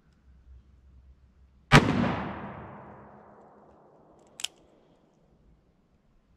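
A single .45 Colt shot from a Ruger Blackhawk single-action revolver, a heavy hand load with a 255-grain Keith cast semi-wadcutter bullet, its echo dying away over about two seconds. A short sharp click follows about two and a half seconds after the shot.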